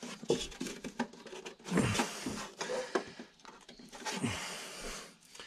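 Belt cover being worked into place on the underside of a lawnmower deck by hand: scattered clicks, knocks and rubbing as its tabs are pushed into their slots.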